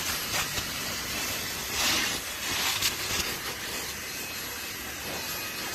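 Fanttik Slim V8 APEX handheld cordless car vacuum running with a steady suction hiss, which briefly gets brighter twice, about two and three seconds in.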